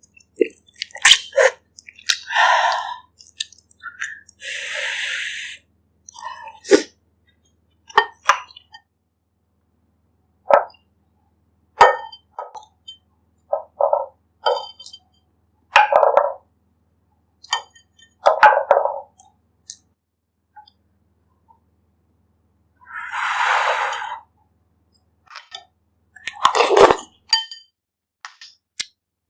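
Close-miked eating sounds of a person eating bak kut teh: wet chewing and mouth clicks, with scattered sharp clinks of utensils against the bowl. There are two longer airy sounds, about five seconds in and near the end.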